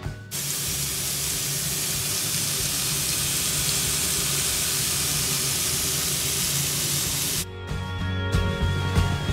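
Chicken tikka skewers sizzling on a hot ridged grill pan: a steady hiss that starts just after the beginning and cuts off suddenly about two seconds before the end, with background music underneath.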